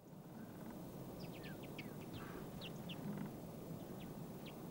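A small feeding flock of common redpolls calling: a scatter of short, sharp high calls, some in quick runs of two or three, over a steady low background noise.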